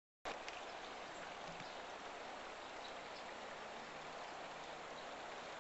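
Steady rushing of a small river's flowing water, cutting in suddenly a quarter second in.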